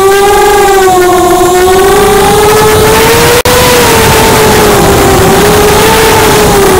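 ImmersionRC Vortex 285 racing quadcopter's motors and propellers whining in flight, the pitch rising and falling with the throttle, over a rush of air. The sound drops out for an instant about halfway through.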